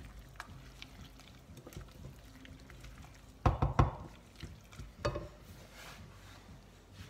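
Wooden spoon stirring chopped chicken and vegetables in a saucepan with a little liquid, with soft wet scrapes and clicks. About halfway through, two loud knocks of the spoon against the pan, and a lighter one a second and a half later.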